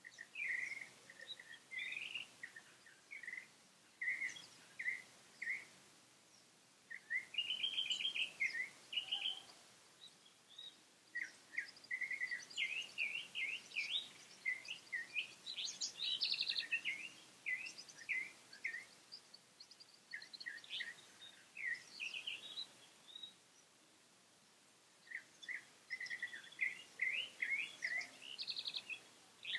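Small birds chirping in quick runs of short, high notes, in several bouts with brief lulls between them.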